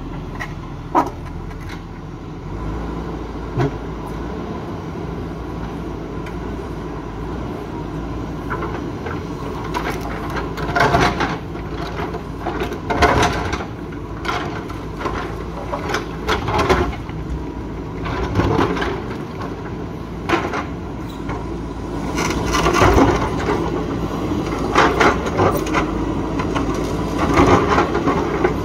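JCB 3DX backhoe loader's diesel engine running steadily, with irregular cracking, clattering and scraping of rock against the steel bucket, growing busier from about ten seconds in.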